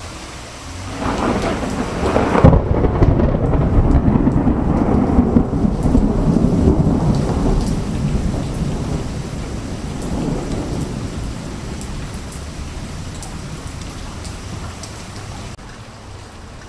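Thunder: a rumble builds to a sharp crack a couple of seconds in, then a long rolling rumble slowly fades away. Rain falls throughout.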